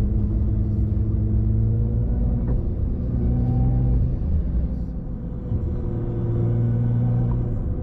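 Car engine and drivetrain running while driving, a steady low hum whose pitch shifts slightly up and down.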